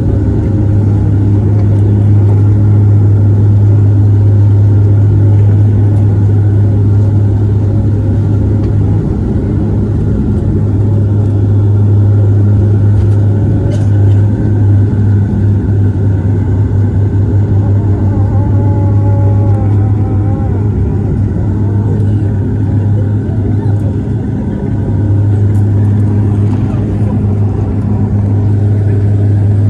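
Dash 8 turboprop engines and propellers at climb power, heard from inside the aircraft as a loud, steady drone with a strong low hum. A short wavering higher tone comes in about two-thirds of the way through.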